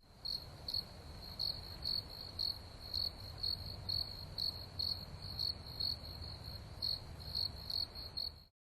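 Crickets chirping in an even, steady rhythm of about two high chirps a second, over a low hum.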